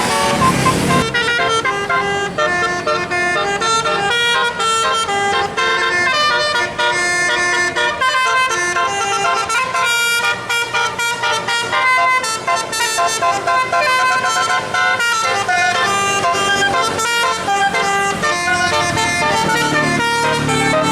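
Tour bus telolet musical air horn playing a fast multi-note tune, the notes changing several times a second and running on with hardly a break. A short burst of rushing noise comes at the very start.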